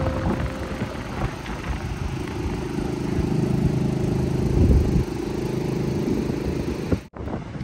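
A small engine running steadily as a low drone, cutting out abruptly for a moment near the end.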